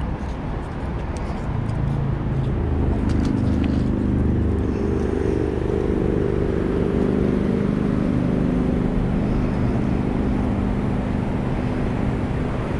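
A vehicle engine running with a steady, even hum that grows louder about a second and a half in and then holds steady, over a low rumble.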